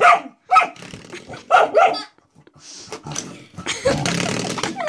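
A dog barking at a spring door stop: four short, sharp barks in the first two seconds, then a longer rough, noisy sound about four seconds in.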